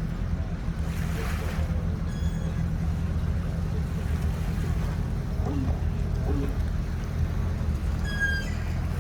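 A boat engine running steadily at low revs, a continuous low rumble, with wind on the microphone. Brief high whistling tones come twice, about two seconds in and again near the end.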